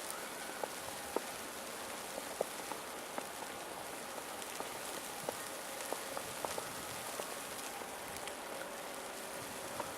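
Steady hiss of falling snow in a snowstorm, with scattered light ticks of flakes striking nearby surfaces.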